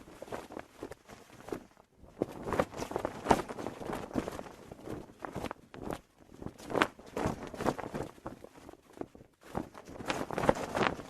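Cloth flag flapping in the wind, snapping in quick irregular bursts, with short lulls about two seconds in and again after nine seconds.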